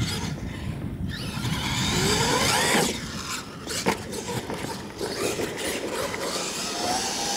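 Radio-controlled monster truck's motor whining and rising in pitch as it speeds up, over the scrabble of its tyres on dirt. A sharp knock about four seconds in as the truck hits the ramp, and another rising whine near the end.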